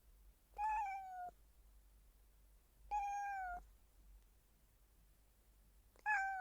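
A cat meowing softly three times, about two and a half seconds apart; each meow is short and dips slightly in pitch at its end.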